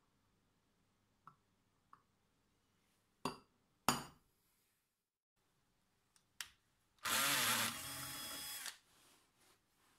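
Two sharp hammer blows on a centre punch marking a thick aluminium plate, then a handheld power drill runs for under two seconds, drilling into the aluminium.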